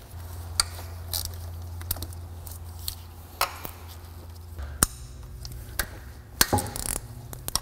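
Irregular sharp metallic clicks and taps of a wrench working the 12 mm bolts that hold an Acura Integra's distributor to the cylinder head, over a steady low hum.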